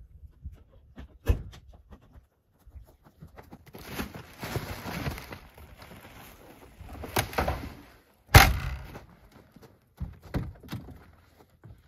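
Rustling and handling as a sack is loaded into the back of a Volvo 240 estate, then the tailgate slammed shut with one heavy thunk about eight seconds in. Lighter clicks near the end as the driver's door is opened.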